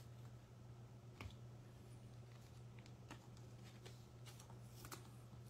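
Near silence: a steady low hum, with a few faint clicks from baseball trading cards being handled, one about a second in and several near the end.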